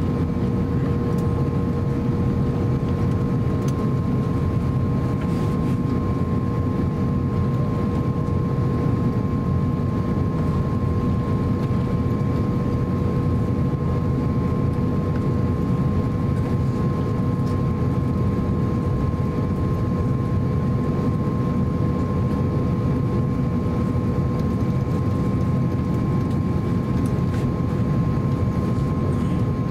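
Cabin noise of an Airbus A350-900 taxiing, heard from a window seat over the wing: its Rolls-Royce Trent XWB engines and cabin systems give a steady low rumble with a constant two-note hum.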